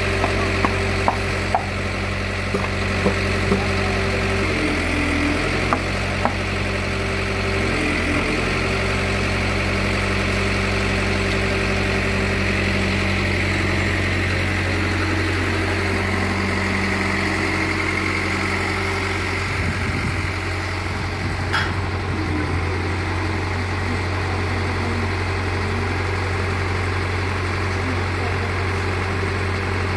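An engine idling steadily, with a few sharp clicks in the first several seconds.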